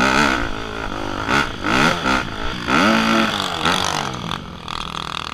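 Dirt bike engine revving hard under load up a steep dirt climb, its pitch rising and falling repeatedly with the throttle. Near the end the engine eases off to a lower, steadier note as the bike crests the top.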